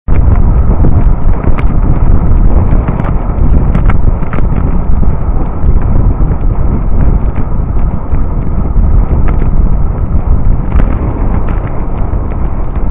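Wind buffeting the camera's microphone while riding a bicycle along a road: a loud, constant low rumble with scattered clicks and knocks.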